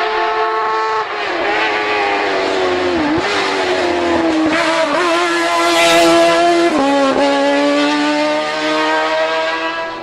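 Racing touring car engine at high revs, climbing in pitch and dipping briefly at several gear changes. It is loudest as the car passes close, about six seconds in.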